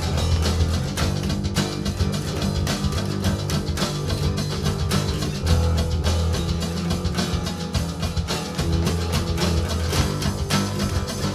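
Rock music with guitars, a heavy bass line and a steady beat.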